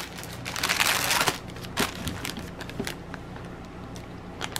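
Clear plastic packaging crinkling as it is handled, a dense crackle for about the first second, then fainter scattered crinkles and clicks.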